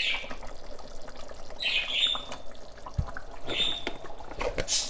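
A pot of thick red lentil stew bubbling and popping at a simmer. Short high sounds recur about every two seconds, with a low thump about three seconds in and a few clicks near the end.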